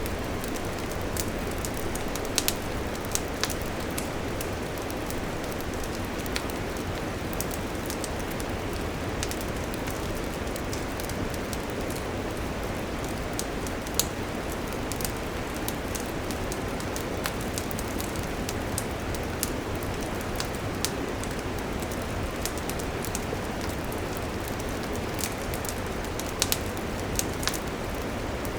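Wood campfire burning: a steady rush of flame with frequent sharp crackles and pops throughout, the loudest pop about halfway through.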